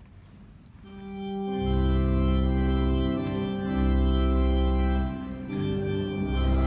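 Church organ coming in about a second in, playing slow sustained chords over deep bass pedal notes that sound three times, with a brief drop between chords near the end.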